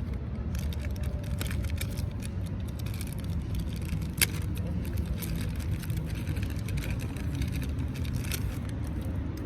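Protective wrapping crinkling and rustling in short crackles as a new Polaroid camera's parts are unwrapped, with one sharp click about four seconds in, over a steady low outdoor rumble.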